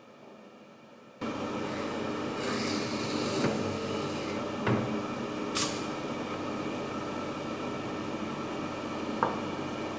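Woodworking machine switched on about a second in and running steadily, with a few sharp clicks and knocks from the work.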